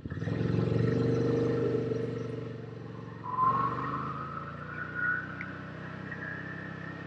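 Side-by-side UTV engine picking up from a slow pulsing run to a loud acceleration at the start, then easing to a steadier drone. A rising whine joins about three seconds in.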